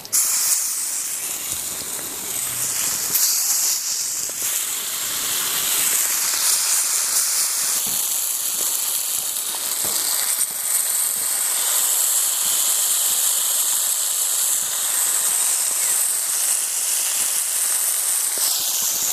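Masala-coated rohu fish steaks sizzling in hot oil on a flat iron pan, a steady frying hiss that starts as soon as the fish goes on and grows a little louder over the first few seconds.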